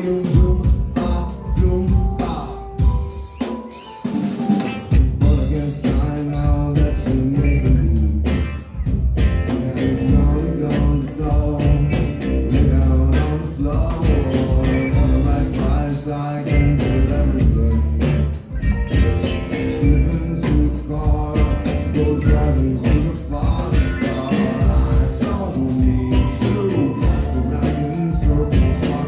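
Rock band playing live, with drum kit and heavy bass. The band drops back briefly about three to four seconds in, then comes back in full.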